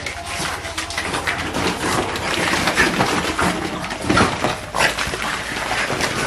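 Two French bulldog puppies playing rough in an inflatable plastic kiddie pool full of plastic play balls: a busy run of knocks and crackles as the balls clatter and the plastic pool rustles under their feet, mixed with the puppies' own noises.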